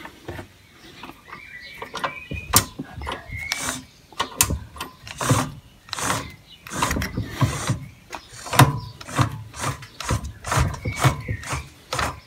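Roller chain, sprockets and pulleys of a go-kart forward-neutral-reverse gearbox drive being turned over by hand. Irregular clicks and clanks come throughout, with a few short squeaks.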